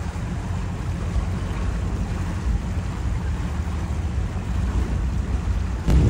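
Steady low rumbling noise with a hiss over it: wind and boat noise heard out on the harbour water.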